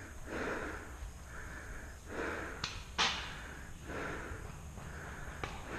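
A paintball player's quick, heavy breathing close to the microphone, in and out about every second, with a few sharp clicks; the loudest comes about three seconds in.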